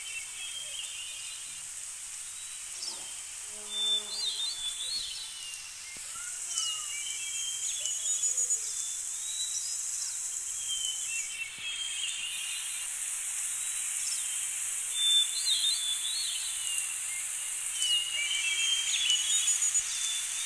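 Outdoor nature ambience: birds chirping and twittering every few seconds over a steady high hiss.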